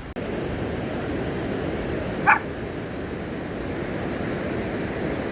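A steady rushing noise, with a single short, sharp animal yelp about two seconds in.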